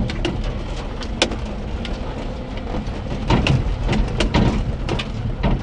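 A Daihatsu Hijet mini truck's 660cc three-cylinder engine running at low speed, heard from inside the cab, as the truck rolls over rough sand. Scattered sharp clicks and knocks from the cab ride over the steady rumble, the loudest about a second in and again around three to four seconds.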